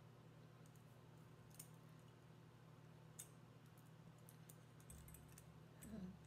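Near silence with a low steady hum and a few faint clicks and ticks of 18-gauge wire being coiled by hand around an agate slice, two of them a little louder.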